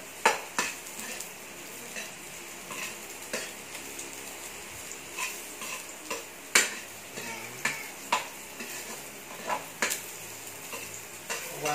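Garlic and onions sizzling in hot oil in a metal wok while a metal ladle stirs them, scraping and clinking against the pan every second or so. The loudest clink comes about six and a half seconds in.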